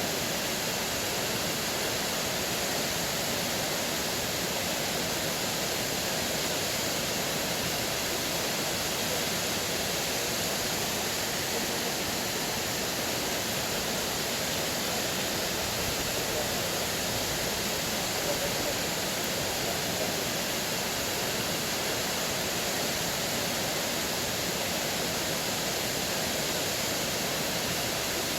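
Waterfall: water pouring and splashing in a steady, unchanging rush.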